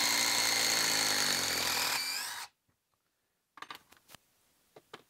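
DeWalt XR 1/4-inch hex impact driver hammering as it backs a lag screw out of a wooden log. It runs steadily for about two and a half seconds, rises in pitch just before it stops, and is followed by a few light knocks.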